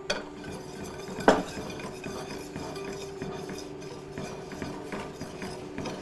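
Wire whisk stirring a thick paste of sugar, cornstarch and egg-milk in a stainless steel sauté pan, with quick repeated taps and scrapes of wire on metal and one louder clank about a second in.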